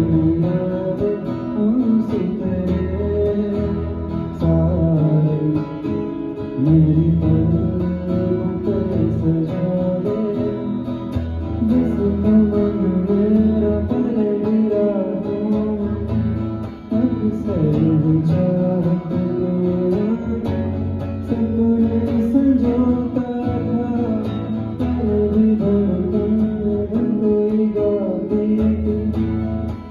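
Live amplified music from a sound check: strummed guitar playing a Hindi love song, with some singing over it.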